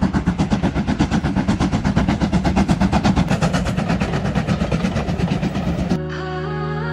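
Steam locomotive working hard past the camera, its exhaust and running gear beating in a fast, even rhythm of several beats a second. About six seconds in it cuts off abruptly and soft background music takes over.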